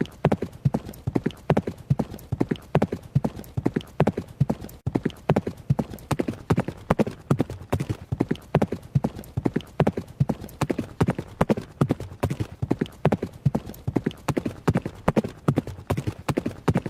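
Horse running, its hooves striking the ground in a steady, evenly repeating rhythm of hoofbeats.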